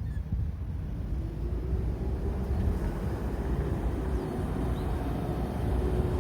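Road traffic: a motor vehicle passing with a low rumble and an engine hum that rises and falls gently, getting a little louder near the end.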